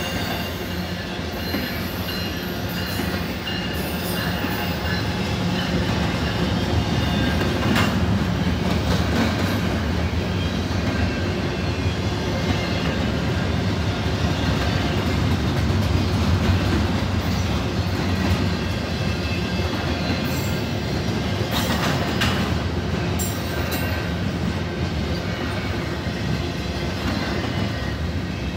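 Double-stack intermodal freight train rolling past, its loaded container well cars giving a steady low rumble with wheel clatter over the rail joints. A few sharp metallic knocks come about eight seconds in and again around twenty-two seconds in.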